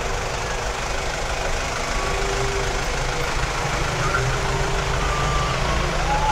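Street traffic with a vehicle engine running close by, a steady low rumble.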